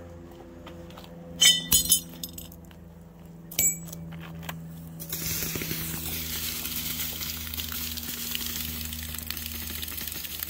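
Sharp metallic clinks, three in quick succession about a second and a half in and one more near four seconds. Then, about five seconds in, a steady sizzling hiss starts as water drips onto a hot, freshly welded steel bracket, quenching it.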